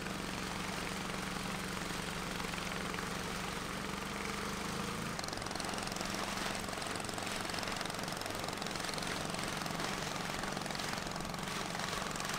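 A river longboat's motor running steadily at speed over rushing water, heard from on board. About five seconds in the sound changes abruptly to a fainter boat engine under wind and river noise.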